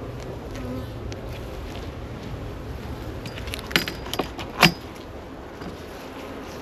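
Honey bees buzzing steadily around an open hive. A quick run of sharp clicks and knocks comes about four seconds in.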